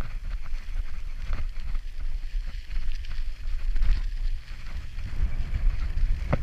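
Bicycle ridden over a rough dirt and gravel road, with wind buffeting the microphone as a steady low rumble and the bike's tyres and frame giving small rattles and clicks; one sharper click near the end.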